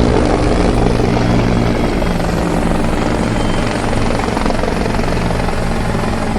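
Helicopter in flight, its rotor and engine making a loud, steady drone that starts abruptly and eases off slightly toward the end.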